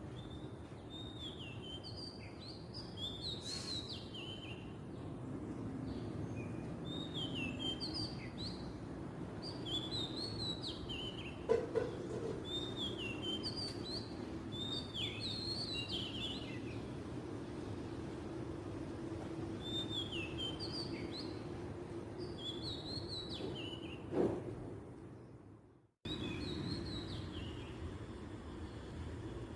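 Oriental magpie-robin singing: short phrases of whistled, slurred notes, repeated every second or so, over a steady low background hum. Two soft thumps sound partway through, and the sound drops out for a moment about three-quarters of the way in before the song resumes.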